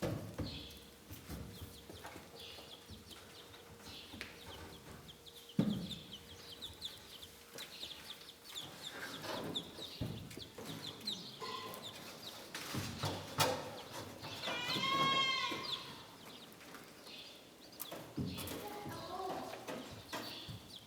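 Chickens clucking and chirping in the background, with one long call that rises and falls about three-quarters of the way through, and a few scattered knocks.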